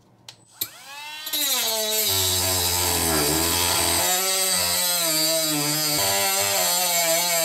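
Dremel rotary tool switched on about half a second in, its whine rising as it spins up. Its abrasive cut-off wheel then grinds into a penny, the motor's pitch dipping and recovering as the wheel bites into the coin.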